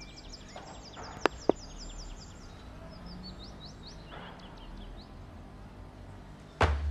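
Rapid series of short, high chirps over a faint low hum, with two sharp clicks a little over a second in and a second, looser run of chirps midway.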